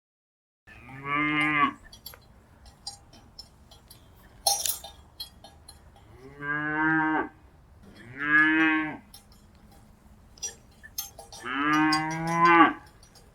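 Cattle mooing: four short moos, one about a second in, two close together around seven and eight seconds, and one near the end. Scattered small clicks run between the calls, with one sharper click about four and a half seconds in.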